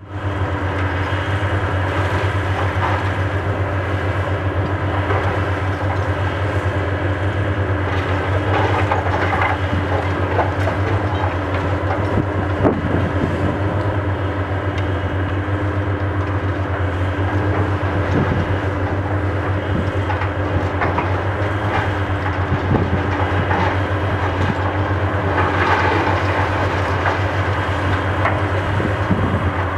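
Diesel engine of a high-reach demolition excavator running steadily under load, with scattered knocks and clatter as concrete and debris break away.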